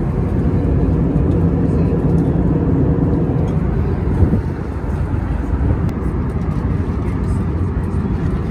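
Steady cabin noise of an Airbus A321neo airliner in flight, a low, even rush of air and engine noise heard from inside the cabin, with one soft knock about four seconds in.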